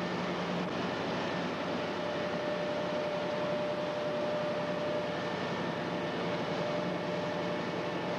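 Steady drone of a river boat under way: engine noise mixed with rushing air, carrying a faint, steady whine.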